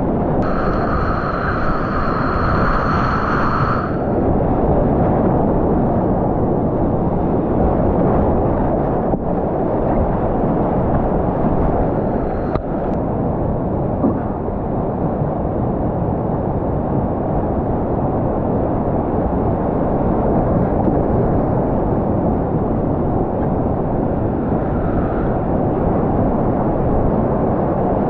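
Loud, steady rush of whitewater rapids around a kayak, heard through a helmet-mounted action camera's microphone. A steady high tone runs for about three seconds near the start.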